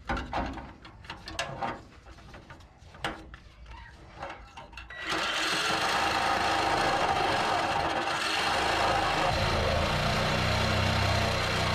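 Scattered clicks and knocks of tools being handled. About five seconds in, a power cutting tool starts abruptly and runs steadily, cutting through the old sheet-steel floor pan of an early Ford Bronco.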